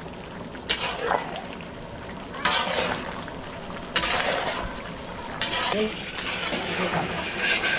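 A long metal spatula scraping and stirring chunks of goat meat in a large iron wok, over a steady sizzle of frying, in about four long scrapes roughly a second and a half apart.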